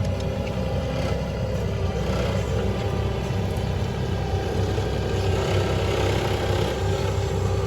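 A motor vehicle's engine running steadily with a continuous low hum, no sharp changes.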